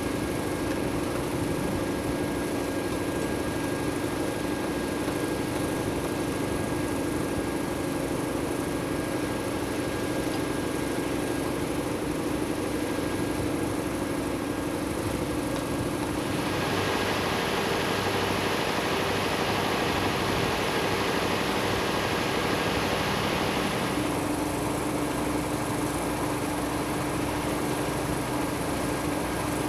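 Steady machine hum with a low droning tone. A louder hissing noise joins it about halfway through and stops after about seven seconds.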